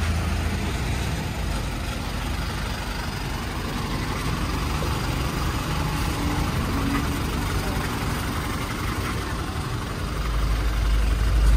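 A parked city bus's engine idling close by, a steady low rumble that grows louder and deeper near the end.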